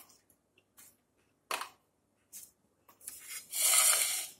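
Kitchen handling sounds as crisp fried mathri are moved onto a serving plate: a few short clicks and rustles, then a longer, louder scraping rustle near the end.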